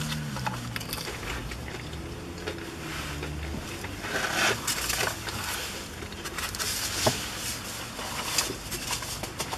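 Paper packaging rustling and crinkling, with a seed packet handled and fried chicken being chewed. Scattered crackles, thickest about four seconds in, and a single sharp click about seven seconds in.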